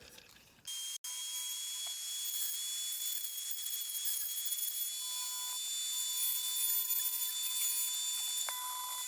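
Small high-speed power tool whining steadily as it drills and grinds into a diecast metal model car to free it apart. It starts under a second in.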